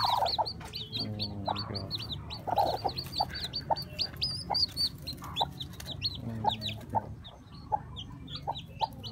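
Newly hatched chicks peeping rapidly and continually, short high falling cheeps several a second, with the broody hen giving low clucks now and then. The peeping thins out near the end.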